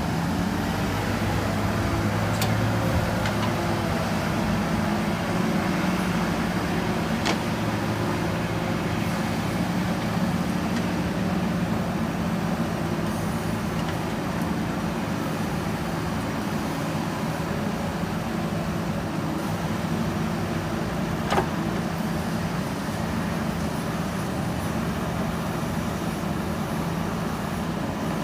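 Diesel engine of a JCB 3DX backhoe loader running steadily under working load while it cuts soil, with a few sharp metallic knocks, the loudest about 21 seconds in.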